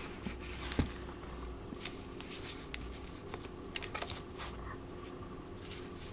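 Old cloth-bound hardback book being opened and its pages turned by hand: soft papery rustles and small clicks, with a single knock of the book against the table about a second in.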